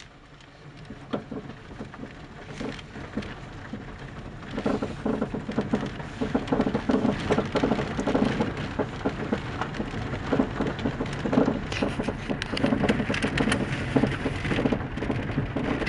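Rapid, irregular knocking and clattering from the front suspension of a Mazda 3 (BK) over a steady low rumble, getting denser and louder about four and a half seconds in. The knocks come from worn ball joints and shock absorbers.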